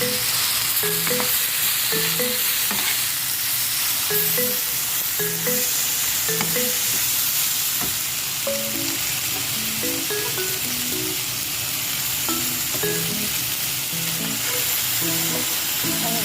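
Food frying in a pan, a steady sizzling hiss, with a simple melody of short notes from background music underneath.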